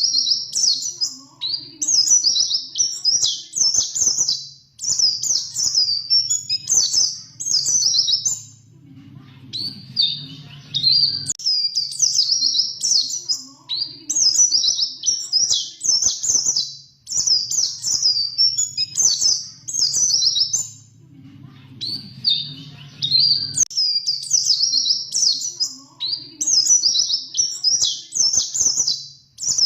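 White-eye (pleci) singing: long runs of rapid, high twittering notes in bouts, broken by pauses of about two seconds around nine seconds in and again around twenty-one seconds in. A faint low hum runs underneath.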